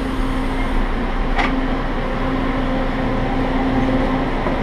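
Steady hum and rumble inside a crowded light-rail train car, with one short sharp click about a second and a half in.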